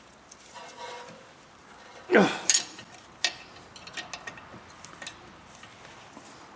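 Hand tools clinking and clicking on metal as the rear brake caliper bolts are tightened, with a louder sliding sound about two seconds in followed by a run of sharp clicks.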